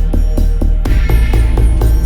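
Electronic background music with a steady beat and a heavy bass line that grows fuller about a second in.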